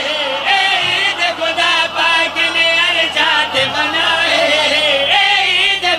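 Men chanting a devotional qasida, several voices singing the same line together.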